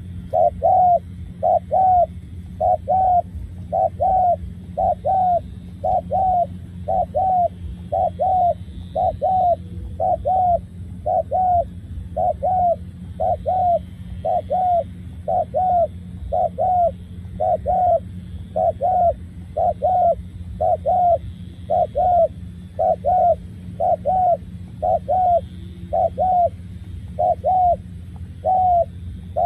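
Spotted dove calling a short, two-part coo over and over, about once a second. A steady low hum runs underneath.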